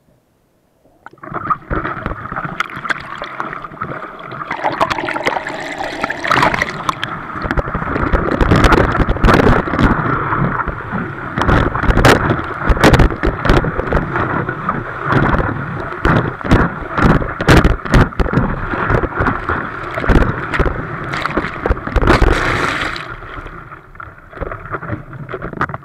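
Water rushing and splashing around a surfboard-mounted action camera as the board rides through a breaking wave, with many sharp slaps of water against the board and camera housing. It is almost quiet for about the first second while the camera is underwater, then loud once it breaks the surface.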